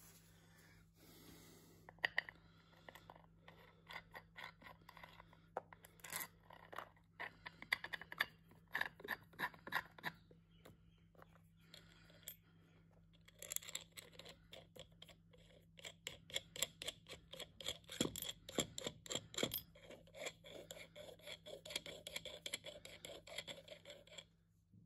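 Small metal-on-metal clicks and scrapes as a steel washer and nut are worked by hand onto the threaded stud of a machine levelling foot, coming in quick irregular runs.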